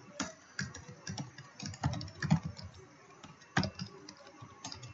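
Typing on a computer keyboard: a run of irregularly spaced keystrokes with short pauses between them.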